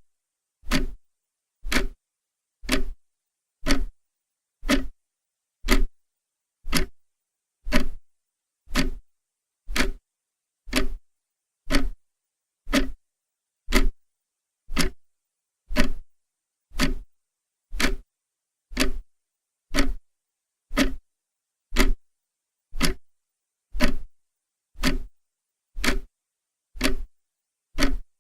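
Clock ticking steadily, one sharp tick about every second, with silence between the ticks.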